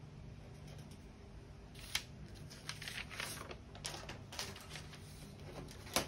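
Paper pattern sheets rustling as they are shifted and flattened on a table, with a few light clicks and taps of handling, the sharpest near the end.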